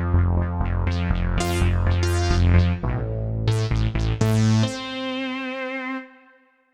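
Kurzweil K2vx synthesizer preset played on the keyboard: a quick run of sharp-attack notes over a held bass line, ending on a sustained chord that fades out about six seconds in.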